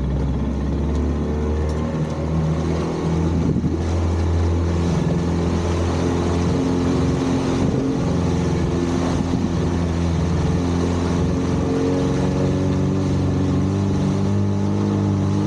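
Outboard motor of a small open skiff picking up speed over the first few seconds, then running steadily at cruising speed, with the rush of water and wind over the hull.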